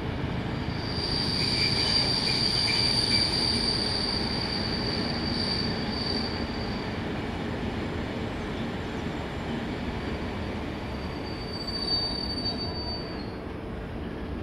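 Northern Ireland Railways 'Thumper' diesel-electric multiple unit running into a station on a curve, its wheels giving a high, steady squeal for several seconds, then again more briefly near the end, over the train's low running rumble.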